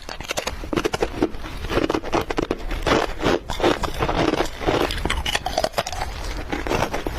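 Solid ice being bitten and chewed, a continuous run of crunching and cracking.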